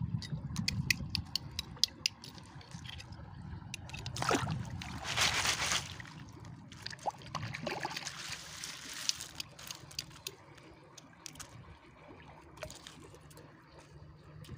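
Kupang mussel shells clicking and clattering against each other as a hand works through a heap of them in a plastic basket. Water splashes and trickles in a loud stretch about four seconds in, and more faintly around eight seconds.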